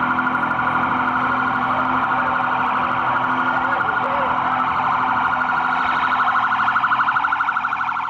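Electronic police siren sounding in a loud, fast, steady warble.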